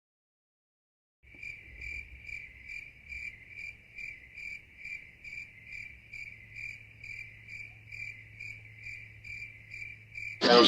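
A cricket chirping steadily, about two short high chirps a second, over a low steady hum. It begins after about a second of dead silence.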